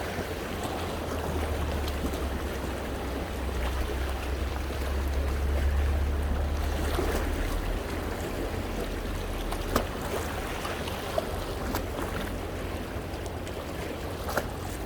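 Sea waves washing against coastal rocks, with water sloshing and splashing, over a low rumble that swells and eases in the first half. A few sharp splashes or knocks come in the latter part.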